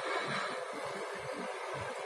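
Handheld gas torch burning with a steady hiss as it heats a metal blade for melting through plastic.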